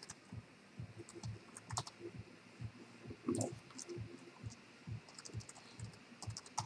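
Keystrokes on a computer keyboard, scattered taps in small clusters as a web address is typed. A brief duller sound comes about halfway through.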